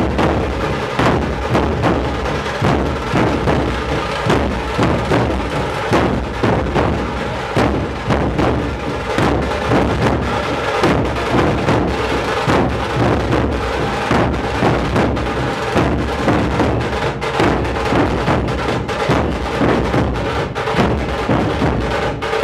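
Nashik dhol ensemble drumming: many large barrel drums struck together in a fast, steady, driving rhythm, with a sustained ringing tone above the beats.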